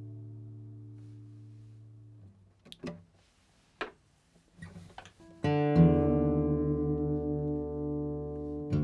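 Martin HD-28 acoustic guitar: a chord rings and fades away, leaving a gap with a few faint knocks and rustles. About five and a half seconds in, a loud new strummed chord rings out, and it is struck again near the end.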